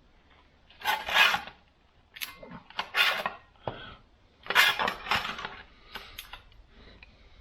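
Sheet-metal patch panel scraping and clattering against the van's body metal as it is test-fitted, in a handful of short bursts.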